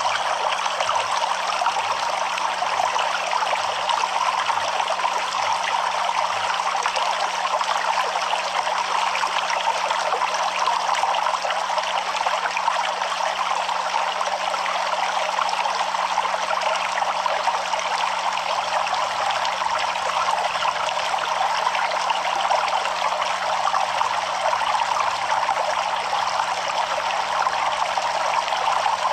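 A flowing stream: water running and trickling in a steady, even rush that does not change.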